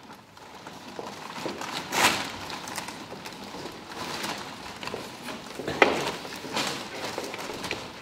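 Footsteps and shuffling of several people moving on a wooden stage floor, with a couple of louder knocks, one about two seconds in and one just before six seconds.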